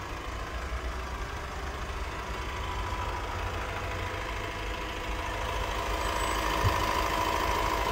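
Honda CR-V's 1.6 i-DTEC four-cylinder turbodiesel idling steadily and quietly on freshly changed oil after an engine flush, with a faint steady whine above the low running note.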